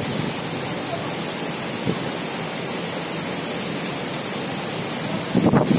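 Steady rushing noise of cyclone wind and heavy rain, with a louder gust near the end.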